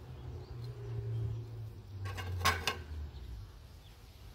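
Small dishes being handled, with a brief clatter of a few quick knocks, like a terracotta bowl against a stainless steel bowl, about halfway through, over a low steady background hum.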